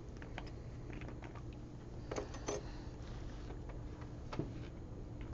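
A few light clicks and knocks of small glass paint jars and bottles being picked up and set down on a table, two close together about two seconds in and another near four and a half seconds, over a steady low room hum.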